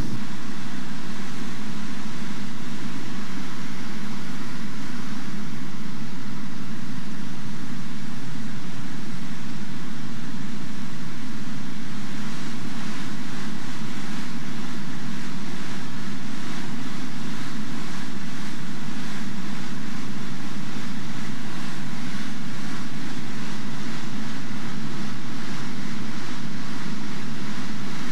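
River rapids rushing: a steady, loud noise of whitewater churning over rock, unchanging throughout.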